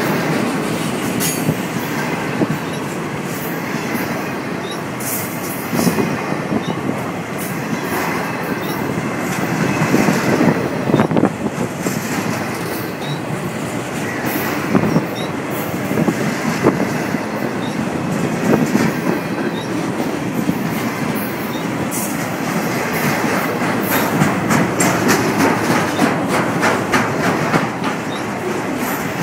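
Intermodal freight train passing at close range: the steel wheels of its trailer-carrying flatcars run along the rail with a steady noise and clack irregularly over the rail joints. The clacks come thicker near the end.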